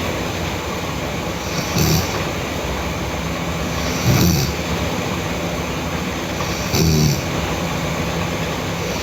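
A person snoring: three short snores about two and a half seconds apart, over a steady rumbling background noise.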